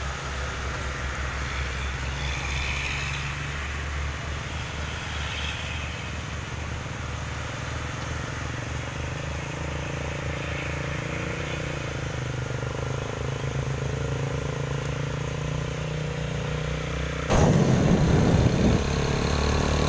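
Road traffic: loaded light trucks, cars and motorcycles passing with their engines running steadily. About 17 seconds in, a sudden louder rough rumble of wind and engine takes over as the recording moves off along the road.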